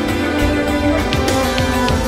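Instrumental background music with held notes, with light percussive ticks coming in about a second in.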